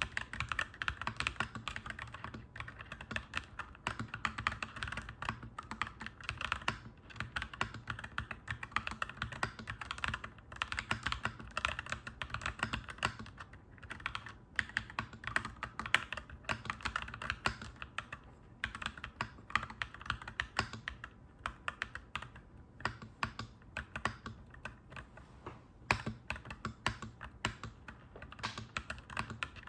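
Clacky mechanical keyboard typing: a fast, continuous run of keystrokes broken by brief pauses every few seconds, over a steady low hum.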